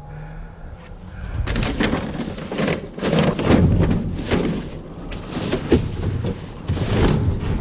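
Debris being rummaged through and shifted in a dumpster: irregular rustling, scraping and clattering that starts about a second and a half in and carries on loudly.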